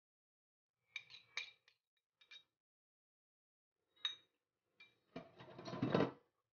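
Small steel bowls and a spoon clinking lightly against a glass mixing bowl as grated carrot and spices are tipped into the batter: a few short clinks, then about a second of scraping near the end.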